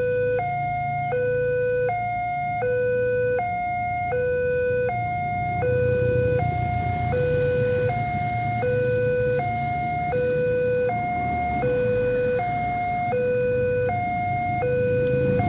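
Railway level-crossing warning siren: an electronic two-tone alarm alternating steadily between a lower and a higher tone, each held about three quarters of a second, over a steady low rumble.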